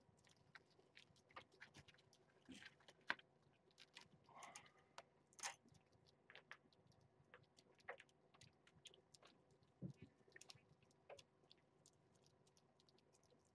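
A mother cat and her kittens chewing soft cat food from a plate: faint, irregular wet clicks and smacks.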